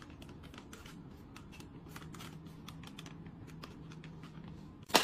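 Light, irregular clicking and ticking, several small clicks a second, over a faint low hum, ending in one louder knock.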